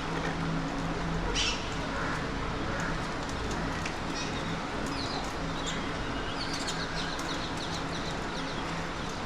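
Parakeets calling: one harsh screech about a second and a half in, then scattered short calls and a quick run of high chirps in the second half. A steady low hum runs underneath.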